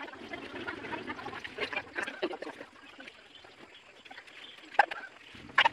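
A hand screwdriver driving a wood screw into a round wooden lazy Susan board, with faint creaking and scraping of the screw turning in the wood and a couple of sharper clicks near the end.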